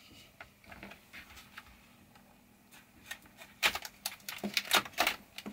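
Stiff plastic blister packaging being opened: scattered crackles and snaps, growing louder and denser for the last two seconds or so.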